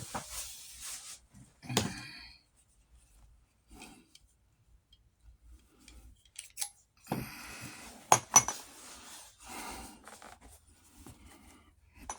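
Metal Blevins buckle hardware clinking and leather straps rubbing as they are handled, with a couple of sharp metallic clicks about eight seconds in.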